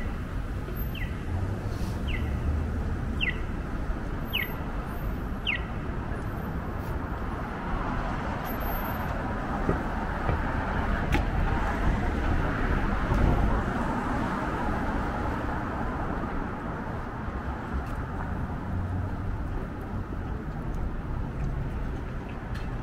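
Downtown street traffic: a steady hum of passing cars, swelling as a louder vehicle goes by about halfway through. For the first five seconds or so, a short high falling chirp repeats about once a second.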